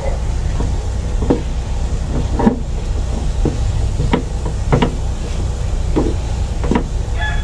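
Wooden spatula scraping and knocking against a nonstick frying pan while stirring a thick, pasty mixture, in short irregular strokes about once a second, over a steady low hum.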